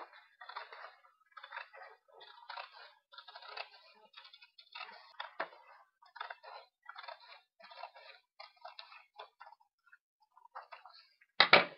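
Scissors snipping through a sheet of paper, a string of short irregular crunching cuts about two a second, with a louder one near the end.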